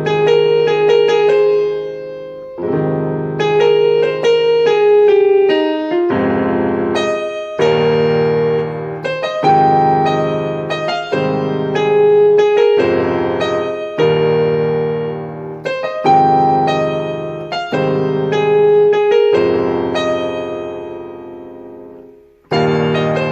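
Solo piano playing a slow R&B ballad: sustained chords struck about every one to two seconds, each ringing and fading, with a brief gap near the end before the next chord.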